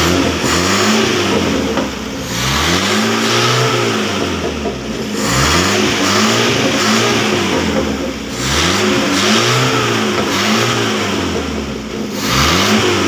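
Carbureted petrol engine revved by hand at the carburetor throttle, its pitch rising and falling with each of many quick blips. It picks up cleanly with no stumbling, and the mechanic takes this as strong and no longer shaking now that the carburetor's fuel jet has been replaced.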